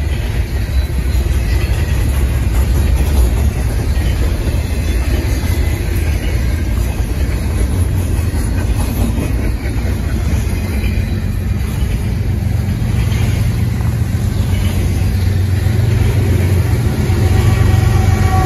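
Double-stack intermodal freight cars rolling past, a steady loud rumble of steel wheels on rail. Near the end the rear distributed-power locomotive, a GE ES44AC, comes alongside and the steady drone of its diesel engine rises over the rumble.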